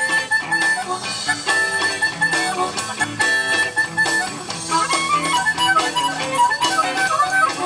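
Harmonica played cupped against a microphone, giving amplified, reedy lead lines over a live band with bass guitar and a steady beat.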